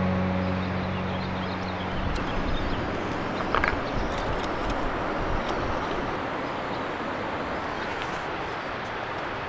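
Steady rushing of a nearby mountain waterfall, with the tail of background music fading out in the first few seconds.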